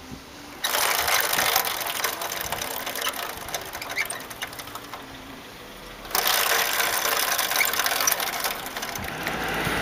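Honda Super Cub's worn drive chain clicking and rattling at the rear wheel, a fast crackling clatter in two spells: it starts about half a second in, eases off around five seconds and comes back around six seconds. The rattle is the sign of a deteriorated chain.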